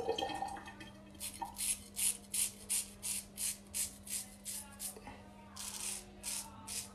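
A handmade Emidio D'Astolfo straight razor scraping through lathered beard stubble in short, quick strokes, about three a second, with a short pause a little before the end and then a few more strokes. A steady low hum runs underneath.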